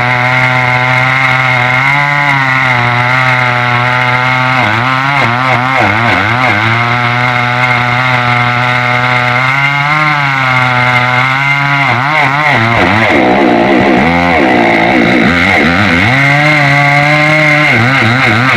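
Two-stroke chainsaw running at high speed while cutting wood. Its engine pitch sags and recovers several times: around five seconds in, around eleven seconds in, and most deeply around fourteen seconds in.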